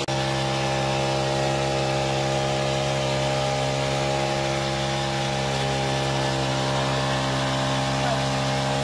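Four-stroke petrol engine of a power sprayer running steadily at a constant speed, driving the sprayer's piston pump.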